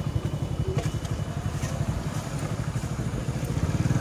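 Motorcycle engine idling with a steady, rapid putter.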